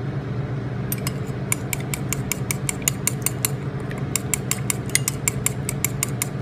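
A metal spoon clinking rapidly against a ceramic bowl while stirring an olive-oil and lemon dressing with steak drippings, about five clinks a second, starting about a second in.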